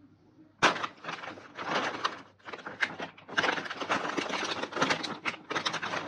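Crisp crunching of freeze-dried fruit and vegetables close to the microphone, a dense crackle that starts suddenly about half a second in and comes in bouts roughly every second.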